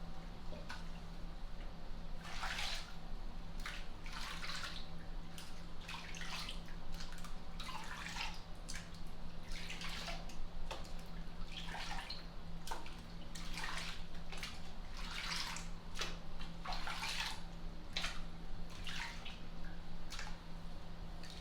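Bathwater splashing and sloshing in a tub, in short irregular swishes about every second, over a steady low hum.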